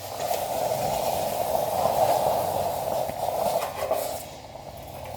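Hot roasted quartz ore quenching in cold water: a steady boiling hiss of steam that dies down about four seconds in.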